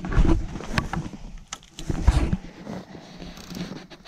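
Footsteps in snow and clothing rustling as a person moves about and crouches: irregular low thumps and a few short knocks, with no engine running.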